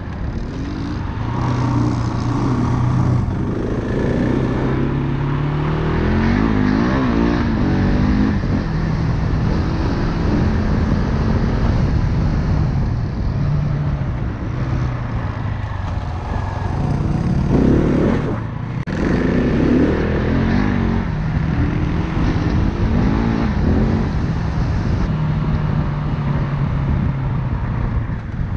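Single-cylinder enduro dirt bike engine running under load, its revs rising and falling in steps with throttle and gear changes. The throttle is cut briefly past the middle.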